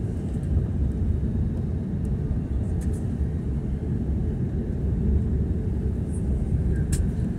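Steady low rumble of an airliner's jet engines and airframe heard inside the cabin while the plane taxis, with no spool-up, and a couple of faint clicks about three and seven seconds in.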